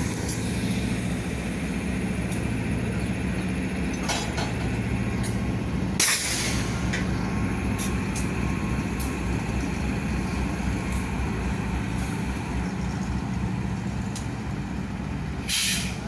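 GE AC4400CW diesel locomotives running with a steady low engine hum, broken by short bursts of hissing air from the air brake system: a brief one about four seconds in, a louder one of about a second near six seconds, and another near the end.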